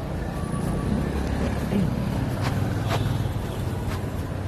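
City road traffic: cars passing, a steady low rumble, with a few sharp clicks about halfway through and near the end.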